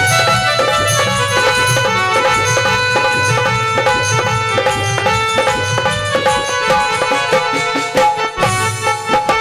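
Instrumental break in a Hindi devotional bhajan: a hand drum keeps a steady rhythm beneath a melody of held notes that move in steps.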